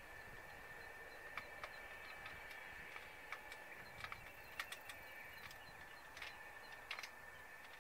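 Quiet outdoor ambience: scattered short bird chirps over a steady high-pitched hum. No jet engine noise is heard yet.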